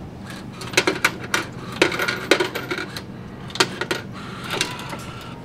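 Self-service coffee vending machine: a series of sharp metallic clicks and clinks, about seven in all, spread irregularly over a few seconds above a steady low hum.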